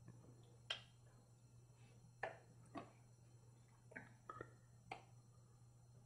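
Hands smacking together during sign language signing: about seven short, sharp slaps and claps, scattered and irregular, over a steady low hum.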